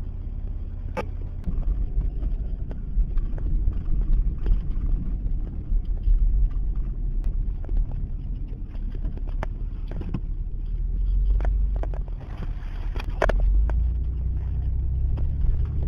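Car driving on snowy roads, heard from inside the cabin: a steady low rumble of engine and tyres, with a few sharp clicks and knocks along the way.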